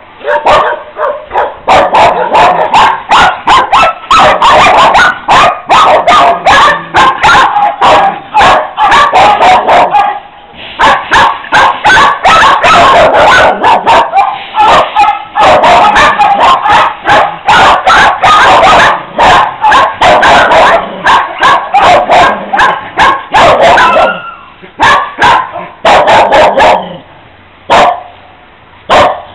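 Many kennelled dogs barking at once in a loud, dense chorus of overlapping barks. The chorus has a brief lull about ten seconds in and thins out near the end.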